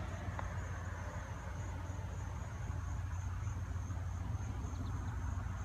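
Outdoor ambience: a steady high-pitched insect chorus, such as crickets or cicadas, over a continuous low rumble.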